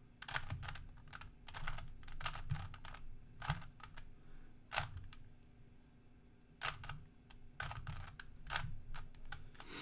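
Rubik's Cube being twisted quickly through an algorithm: runs of plastic clicking and clacking as the layers turn, with a pause of about a second past the middle.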